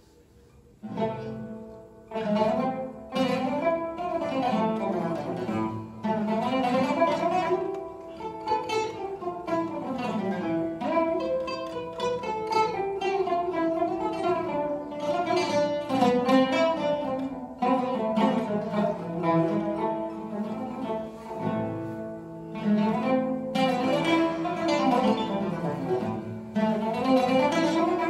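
Oud and Turkish tanbur playing a saz semai together, plucked Turkish classical instrumental music. It comes in about a second in, after a brief near-silent pause.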